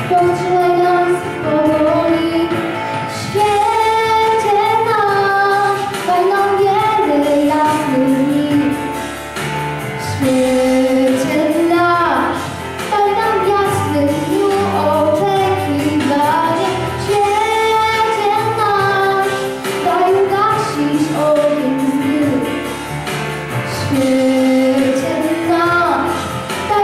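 A young girl singing a song into a handheld microphone over an instrumental backing, her voice gliding and holding notes.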